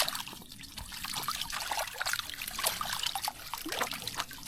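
Water trickling and dripping, with many small drops plinking into water.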